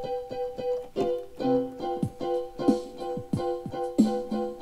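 Keyboard played in a piano voice, chords struck in a steady rhythm of about three a second over a repeated upper note, with no singing.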